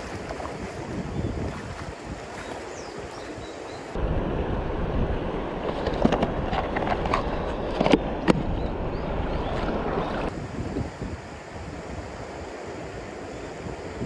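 Steady rush of a mountain stream's flowing water. Partway through it gets louder and fuller for several seconds, with a few sharp knocks near the middle, then drops back.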